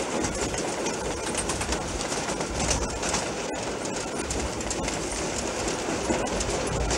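Freight train wagons rolling past, a steady rumble with the steel wheels clicking over the rail joints.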